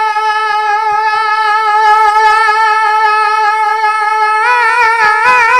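A naat reciter's voice holding one long, high sung note unaccompanied, then breaking into a wavering, ornamented run near the end.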